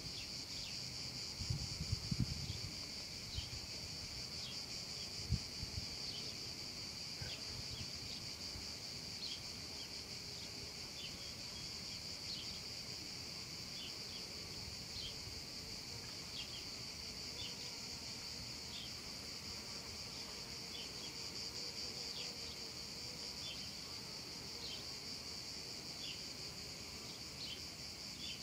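Cicadas singing in a continuous high-pitched shrill drone, with short chirps dotted over it about once a second. A few low knocks sound in the first six seconds.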